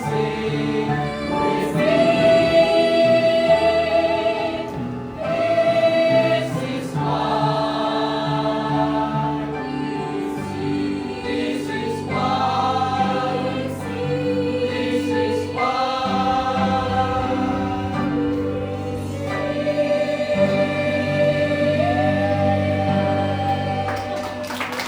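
A choir singing a slow piece in several parts, with long held notes that change pitch every second or two.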